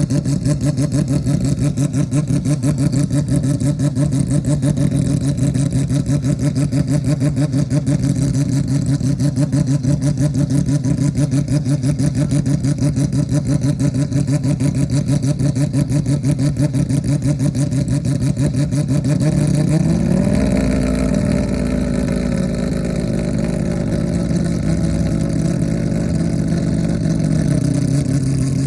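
Mazda 767B's four-rotor rotary engine idling with a choppy, pulsing note, then revved up about two-thirds of the way in and held at raised revs for several seconds before dropping back near the end.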